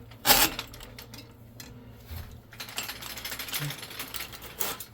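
Clunks, clicks and scraping of hands and tools working a clogged toilet: a sharp knock just after the start, light clicking and rubbing, then another knock near the end.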